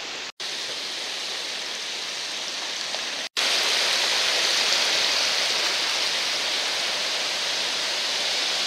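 Small waves washing in over a sandy shore, a steady rushing hiss. It cuts out briefly twice and is louder after the second gap, about three seconds in.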